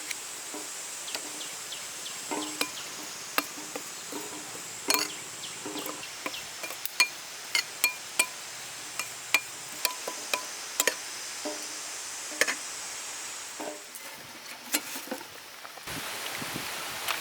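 Scattered sharp clinks and knocks of cooking utensils and bowls being handled while seasonings are added, over a steady high buzz of insects. A steady hiss starts near the end.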